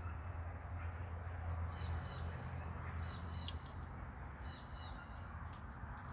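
Steel chain of a long spring trap clinking lightly in the hands as it is handled, a few scattered sharp clicks. A steady low rumble runs underneath, and two brief high chirps come about two seconds and about four and a half seconds in.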